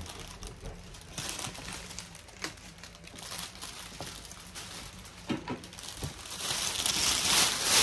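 Plastic crinkling and rustling as it is handled, with scattered light clicks, growing clearly louder over the last second or so.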